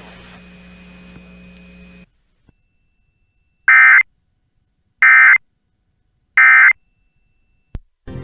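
EAS end-of-message signal from NOAA Weather Radio: three short, loud bursts of SAME digital data tones about a second and a half apart, marking the end of the alert message. Before them comes about two seconds of faint radio hiss and hum. A click and crackle follow near the end.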